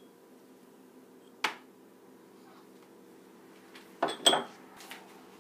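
Glass marbles clinking against small glass paint jars: one clink about a second and a half in, then two in quick succession about four seconds in, each with a brief glassy ring.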